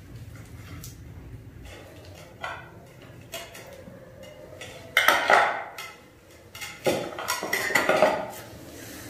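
Kitchen dishes and metal utensils being handled, clattering and clinking in irregular bursts. The loudest bursts come about five seconds in and again around seven to eight seconds in.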